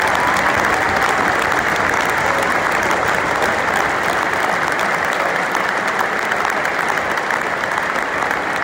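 Sustained applause from a football stadium crowd and players clapping on the pitch, easing slightly near the end.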